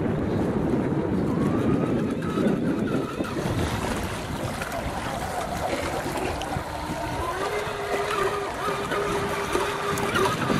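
Venom King of Shaves electric RC catamaran running at speed on choppy water: its brushless motor and propeller give a steady high whine that becomes clearer about two thirds of the way in, over a rushing noise of wind and water.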